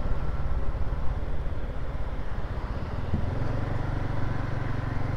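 Motor scooter engine running while riding, with road noise; the low engine hum shifts and becomes steadier about three seconds in.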